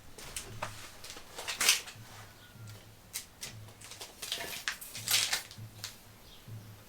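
Scattered knocks, clicks and rustles of wooden pieces being handled and set down, loudest about one and a half seconds in and again around five seconds.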